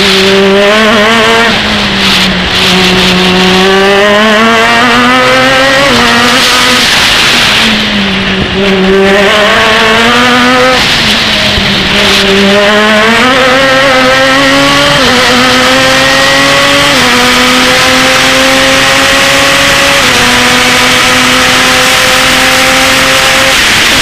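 Open-wheel formula race car engine heard from the cockpit at racing speed: the revs drop off and climb again several times as the car brakes, shifts down and powers out of corners, then pull up in steps through three or four upshifts on a straight before falling away near the end as it brakes. Wind rush runs under it.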